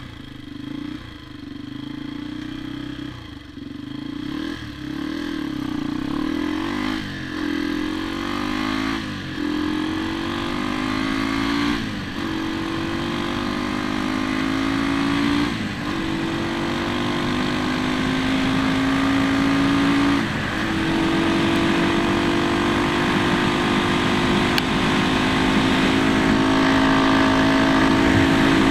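Honda XR dirt bike's single-cylinder four-stroke engine accelerating hard from a standing start, its pitch climbing and dropping back as the rider shifts up through the gears about five times. It then pulls steadily in top gear near the end, getting gradually louder.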